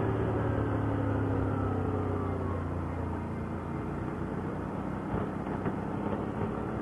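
ATV engine running while riding, its pitch easing down slightly over the first few seconds and then holding steady.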